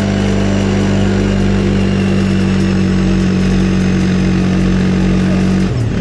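CFMoto ATV's single-cylinder engine running at a steady, unchanging pitch with the quad bogged in deep mud; the note changes abruptly near the end.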